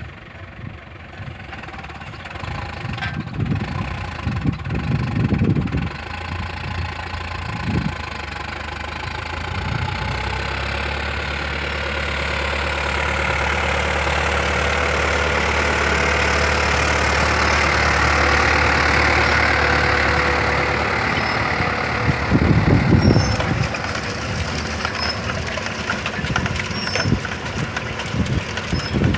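Tractor engine running as it pulls a Bertini 10000 seed drill past, growing louder as it approaches and then easing off. Near the end the drill rattles and clicks as it goes by close. There are a few low rumbles along the way.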